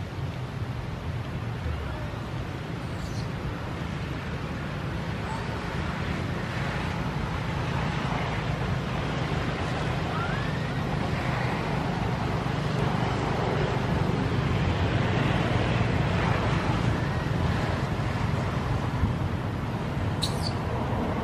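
Steady rumbling outdoor background noise with a broad hiss, like wind or distant traffic, growing slightly louder toward the middle, with one brief high chirp near the end.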